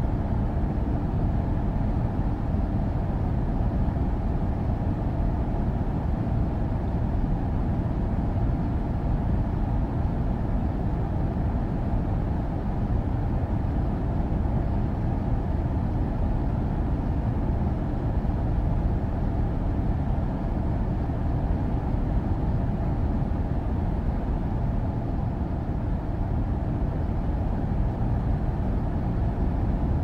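Outdoor air-conditioner condenser unit running: a steady low hum and rush of air from its fan, with no change in level or pitch.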